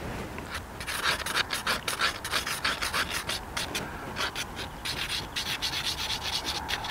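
Stick of homemade campfire charcoal scratching across drawing paper in quick sketching strokes, several a second.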